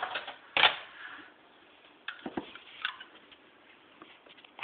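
A few sharp clicks and taps of a metal spoon knocking against a glass jar as sauce is scooped out, the first one the loudest.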